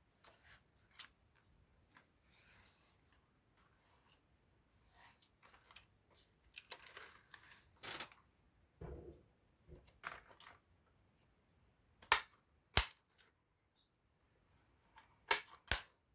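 Handling noises while the item is unpacked: rustling and shuffling, then four sharp plastic-sounding clacks in two pairs in the second half.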